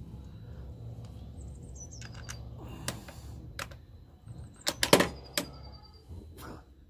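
Click-type torque wrench tightening engine-cover bolts, with scattered sharp metallic clicks and the loudest cluster about five seconds in, as the wrench clicks over at its set torque. Birds chirp briefly in the background twice.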